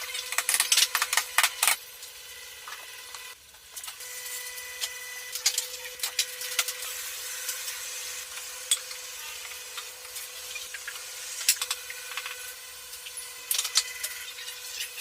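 Small power tool running at a steady hum while working wood, with scraping and many sharp ticks; a dense run of loud ticks fills the first two seconds.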